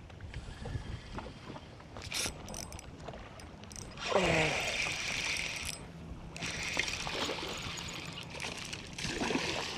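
Small waves lapping at a fishing boat's hull with wind, while a spinning rod and reel are handled and the line is worked in. A louder rushing hiss comes about four seconds in and lasts a couple of seconds.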